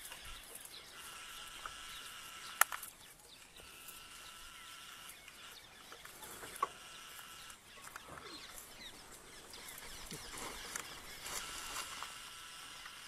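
Forest ambience: a steady high-pitched drone that breaks off and resumes a few times, with scattered bird calls and a single sharp click about two and a half seconds in.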